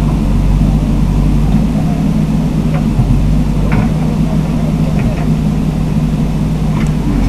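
Bulldozer's diesel engine running steadily under load, with a few faint clicks over it.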